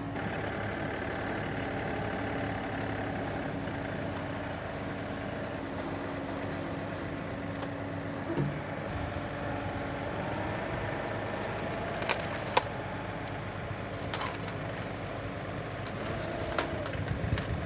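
John Deere compact tractor's diesel engine running steadily while it powers a loader-mounted hydraulic pole chainsaw cutting limbs overhead. Several sharp cracks and snaps of wood come through, a cluster about twelve seconds in and more near the end.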